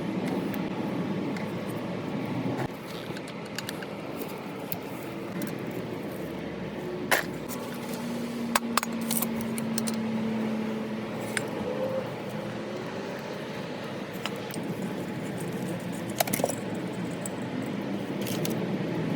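Small metal parts and tools clinking and tapping a handful of times while the sprayer is taken apart, over a steady low background hum.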